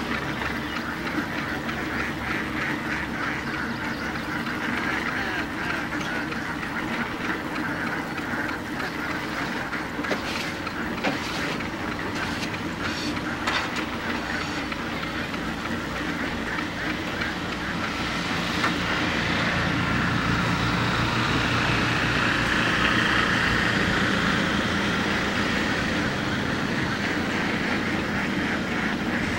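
A large flock of domestic ducks quacking and chattering all together in a continuous din, growing louder about two-thirds of the way through. A low, even pulsing rumble runs underneath in the second half.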